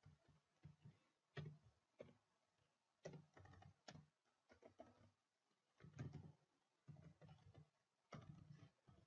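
Faint, irregular keystrokes of a computer keyboard being typed on.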